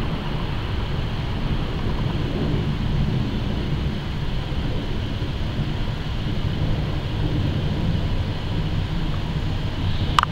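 Four-engine Airbus A380 jetliner flying overhead: a steady, low jet rumble.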